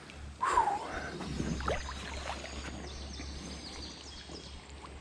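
Steady outdoor creek ambience, an even background hiss, with a few faint short bird chirps around the middle.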